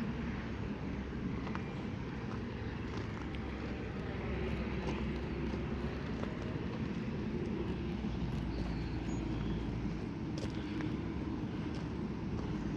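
Steady outdoor background rumble, with a few faint clicks and ticks.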